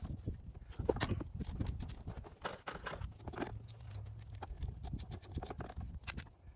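Scattered light clicks and clinks of a ratchet and T50 Torx bit being fitted and worked on a bolt in a car's engine bay, coming at irregular intervals rather than as a steady ratcheting run.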